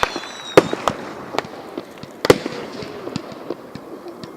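Aerial fireworks exploding: a string of sharp bangs at uneven intervals, the loudest about two seconds in, with smaller pops and crackling between them and a fading whistle at the start.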